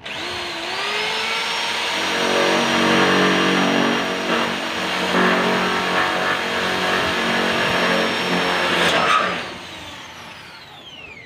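Handheld electric drill starting abruptly and running at speed as the bit bores into a metal wall stud, a steady motor whine with a lower hum under load. About nine seconds in the trigger is let go and the motor winds down with a falling whine.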